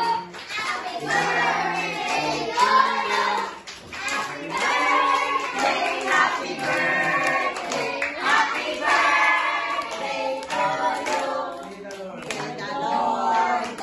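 A group of children and adults singing together while clapping their hands along with the song.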